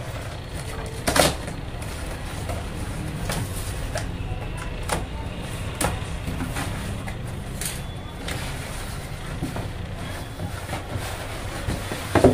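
Packing tape being slit and torn off a cardboard box, then the flaps pulled open and a plastic-wrapped package rustled. These come as a string of short, sharp rips and crackles, the loudest about a second in and another near the end, over a steady low background hum.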